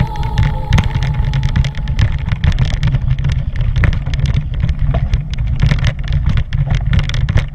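Heavy wind buffeting on a camera microphone during a mountain-bike ride, with many quick rattles and clacks of the bike running over a rough trail surface.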